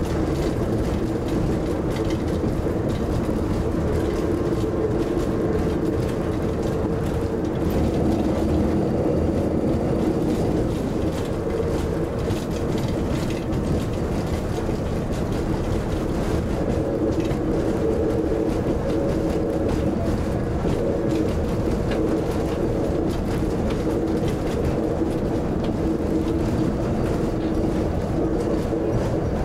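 Nanbu Jukan Railway railbus heard from inside its cab while running along the line: a steady diesel engine drone with a constant low hum, over the rumble of the wheels on the track.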